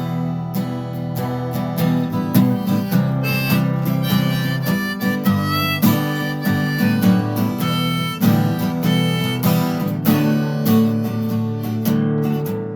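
Harmonica in the key of G playing a solo over a strummed acoustic guitar, in an instrumental break between sung verses.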